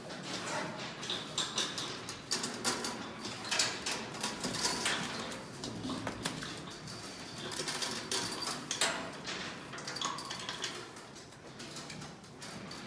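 Irregular clanking and knocking as a bull tethered by a chain in its stall struggles and shifts about, over the steady hiss of a sprayer wand. The clatter is busiest through the middle and eases off near the end.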